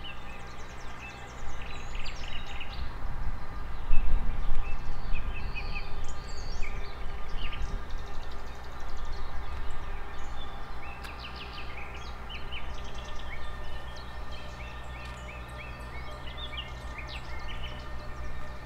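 Small birds chirping repeatedly over a steady low rumble with a faint even hum, the rumble louder in the first half.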